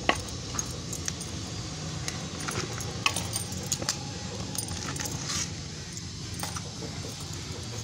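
Bangles clinking in short, scattered jingles as a hand scoops loose garden soil into a plastic pot, with soft rustling of the soil, over a low steady hum.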